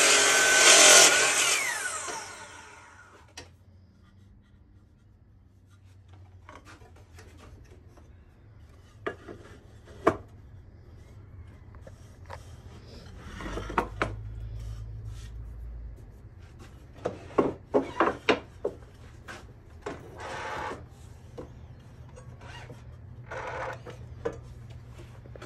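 Kobalt sliding miter saw finishing a cut through a wooden board, its blade winding down in pitch and going quiet within about three seconds. After that come boards being handled and set against the saw fence: scattered wooden knocks, a quick run of clacks and brief scraping slides.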